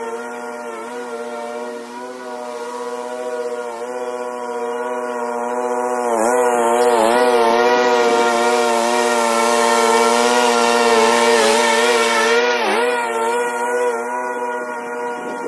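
Troy-Bilt Pony 42-inch riding mower's 547cc engine running steadily with the blades cutting tall grass. It grows louder for several seconds in the middle, with a few brief dips in pitch under the load.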